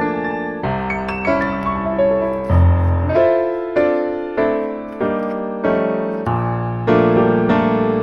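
Background piano music: gentle notes and chords struck about every half second to second, each fading before the next.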